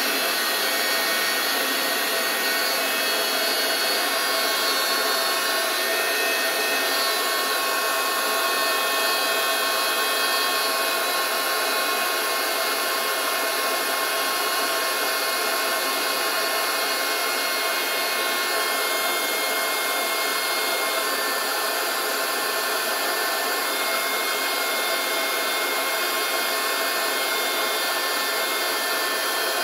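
Electric air pump running steadily while it inflates a chamber of an inflatable boat through its high-flow valve: a constant rush of blown air with a few steady whining tones over it.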